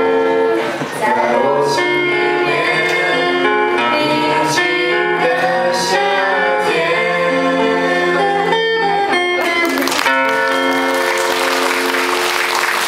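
A group of young voices singing together to a guitar accompaniment, holding long notes. About ten seconds in, audience applause starts up over the closing notes.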